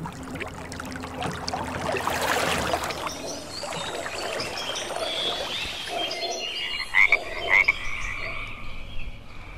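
Frogs calling: a scatter of short chirping croaks, the two loudest about seven seconds in, after a hissing swell in the first three seconds.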